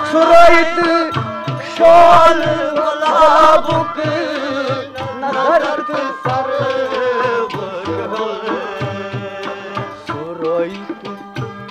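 Music from a Kashmiri song: a wavering melodic lead over a steady hand-drum beat. The lead is loudest in the first few seconds.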